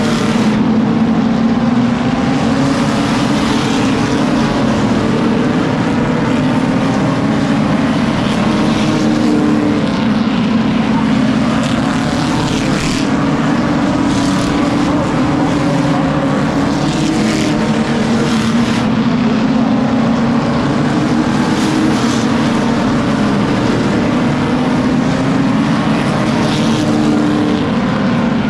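A pack of stock cars racing on a short oval track, their engines running loud and without a break. The engine note keeps rising and falling as the cars accelerate off the turns and pass by.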